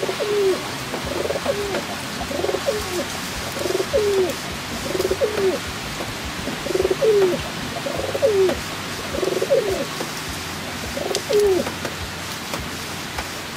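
Pigeons cooing over and over, about nine coos each ending in a falling note, over the steady hiss of heavy rain.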